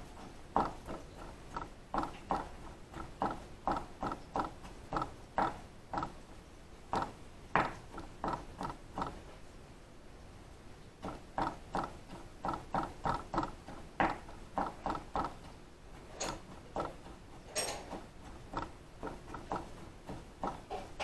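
Knife chopping pickles on a cutting board: a quick, uneven run of sharp knocks, about two to three a second, with a short pause around the middle.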